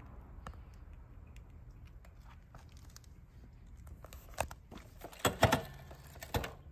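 Light crinkling rustles and small clicks, with a few louder bursts of rustling around four and a half, five and a half and six and a half seconds in; no engine running.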